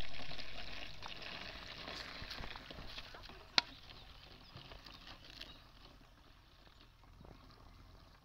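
Palm sap pouring in a thin stream from a plastic pot into a plastic bottle: a steady splashing trickle that grows gradually fainter, with one sharp click about three and a half seconds in.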